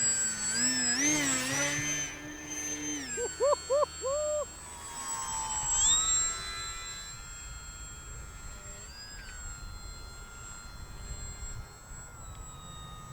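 Volantex Saber 920 RC aerobatic plane's electric motor and propeller whining, the pitch rising and falling with the throttle. About three seconds in come three quick throttle blips, then the whine drops and settles to a fainter steady tone.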